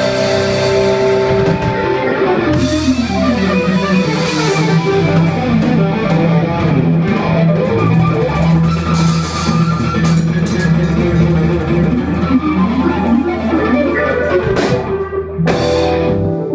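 A rock band playing live without vocals: electric guitar, keyboard and drum kit. A held keyboard chord opens into a steady low bass line, with cymbal crashes now and then.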